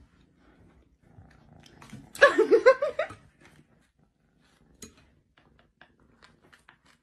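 A woman bursts out laughing in short pulses for about a second, the loudest sound. Around it, faint sounds of a tabby kitten purring and then biting at a piece of pizza crust, with small scattered clicks.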